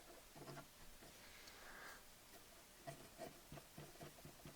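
Near silence with faint scratching and a few small ticks: a cotton swab being rubbed around the turntable's bearing well to soak up old oil.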